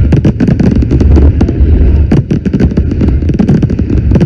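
Fireworks going off: a dense, rapid run of sharp pops and crackles over a deep rumble.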